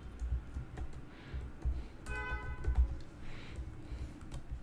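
Computer keyboard typing: scattered soft key clicks and thumps. A brief pitched hum about two seconds in.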